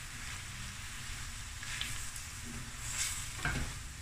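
Peppers and zucchini spaghetti sizzling in a hot stainless steel pan while a wooden spatula stirs and turns them, with a few louder stirring strokes about halfway through and near the end.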